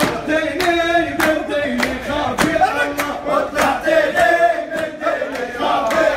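A group of men chanting a song together in unison, clapping a steady beat in time, a little under two claps a second.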